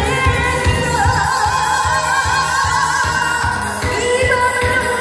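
A woman singing a Korean song into a microphone with strong vibrato, over amplified backing music with a steady beat.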